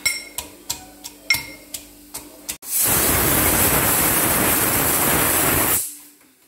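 Metal pestle pounding chillies and shallots in a metal mortar, about three sharp clinking strikes a second. About two and a half seconds in, a loud steady hiss covers everything for about three seconds, then fades.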